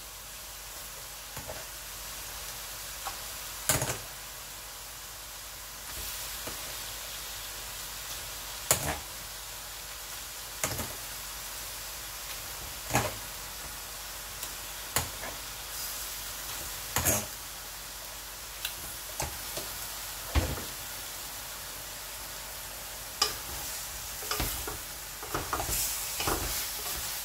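Steady sizzle of oil in a hot wok as cubes of overnight porridge cake are spooned in, with a sharp knock every two seconds or so as each scoop goes in. Near the end, a wooden spatula stirring the wok.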